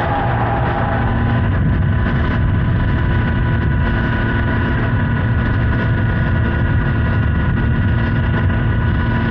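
Honda Hornet 900's inline-four engine running at a steady cruising speed, mixed with heavy wind rush over the microphone.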